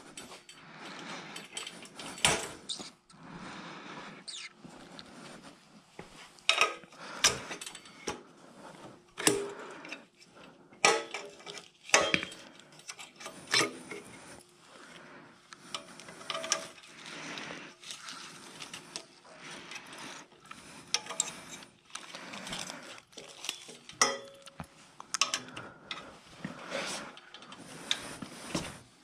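Irregular sharp clanks and knocks of an aluminium cart frame being handled and turned over, with clicks of a small hand tool against metal hardware.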